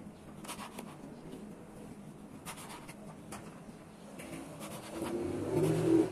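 Kitchen knife slicing an eggplant into rounds on a wooden cutting board: a string of soft cuts, each ending in a light tap of the blade on the board. Near the end a louder low humming sound swells for about a second and stops.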